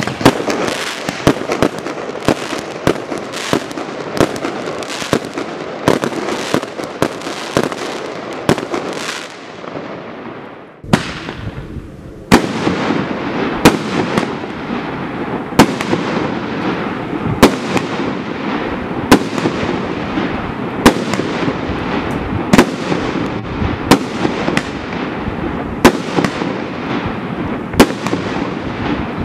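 Primed Pyrotechnics firework barrage cakes firing. The Russian Roulette cake's rapid, dense stream of pops and bangs dies away about ten seconds in. After a short lull, the Jackpot cake fires steady shots, a loud bang every second or two over continuous hissing and crackling from the bursts.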